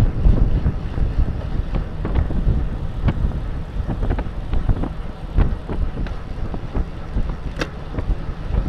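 Wind buffeting a bicycle-mounted camera's microphone at about 25 mph, a heavy steady low rumble mixed with tyre and road noise. Irregular light clicks from the bike run through it, with one sharper click near the end.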